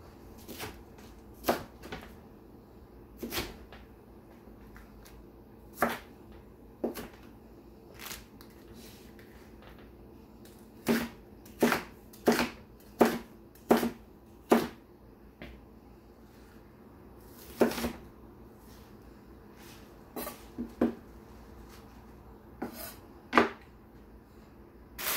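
Cleaver chopping cabbage on a bamboo cutting board: single sharp knocks at irregular intervals, with a quicker run of chops about halfway through.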